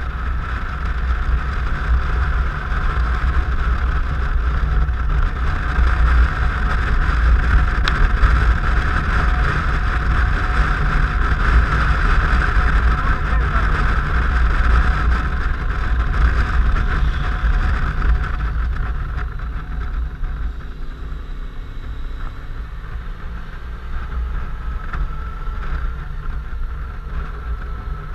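Suzuki Burgman 650 maxi-scooter riding along an open road: a steady engine drone under heavy wind rumble on the microphone. It gets louder through the middle and eases off in the last third.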